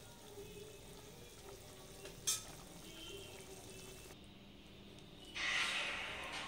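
Egg curry gravy simmering and bubbling in a steel kadai while a metal ladle stirs and bastes, with one sharp clink of the ladle against the pan about two seconds in. A louder hissing sound comes in about five seconds in.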